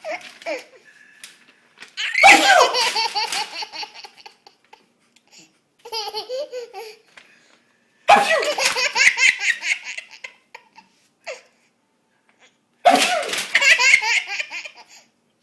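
A toddler laughing hard at a man's sneezes, in four bouts of rapid ha-ha-ha. Three of them start suddenly, about every five seconds, and one softer bout falls in between.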